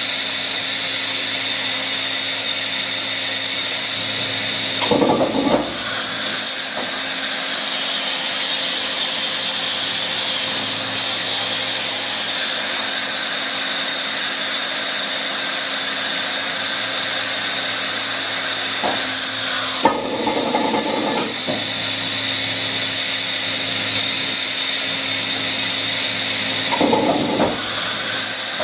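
Makino A71 horizontal machining center running with a steady hum and a high-pitched whine while its automatic pallet changer swaps and indexes the 20-inch pallets. Three short bursts of mechanical noise about 5, 20 and 27 seconds in, the middle one with a sharp click, come from the pallet change and table rotation.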